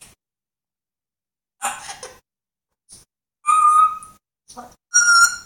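African grey parrot vocalising: a short breathy, hissy sound, then two short whistled calls about a second and a half apart, the second a little higher in pitch.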